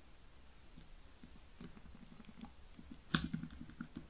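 Computer keyboard being typed on, faint key clicks in short runs, with a louder cluster of clicks about three seconds in.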